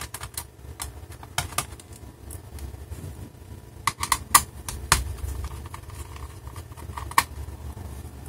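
Scattered sharp clicks and taps of a small screwdriver working the screws in the plastic base of a Dell Inspiron 14z laptop, with a cluster of louder clicks about four to five seconds in.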